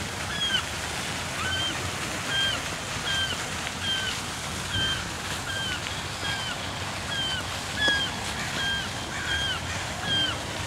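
A short, high squeak with a quick downward hook at the end repeats about every half second, over a steady rushing noise.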